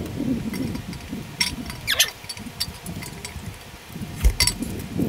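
Steel camshaft being slid by hand into the cam bearings of a bare LS V8 block: scattered light metal clicks and clinks, with the loudest knock about four and a half seconds in.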